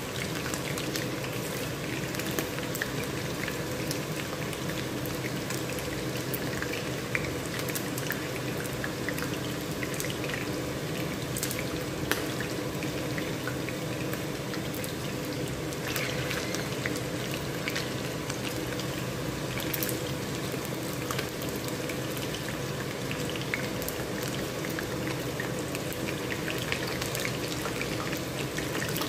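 Chicken wings frying in hot oil in a skillet: steady sizzling with scattered sharp pops and crackles as the wings crisp.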